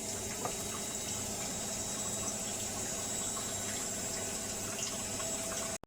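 Steady rushing hiss of kitchen background noise, like water running from a tap, cutting off suddenly near the end.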